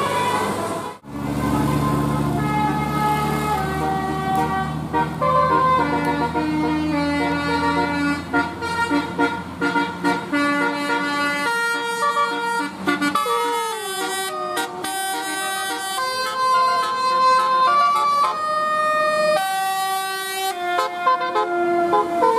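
Bus 'telolet' horn, a multi-tone air horn, playing a melody of held notes that change pitch in steps, with a siren-like glide in pitch about two-thirds of the way through. The sound cuts out briefly about a second in.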